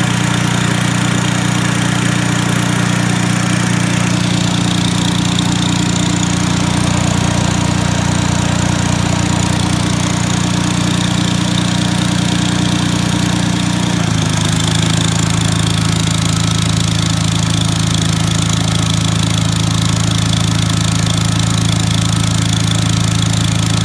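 Onan W2C generator engine running steadily under a load, its note dropping slightly in pitch about fourteen seconds in. The generator is not holding 120 volts under load, which the owner puts down to the untuned carburetor.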